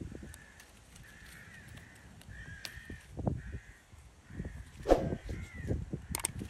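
A bird calling over and over in short, crow-like caws, about one a second, over close rustling of bay laurel leaves handled at the microphone, with a sharp snap about five seconds in.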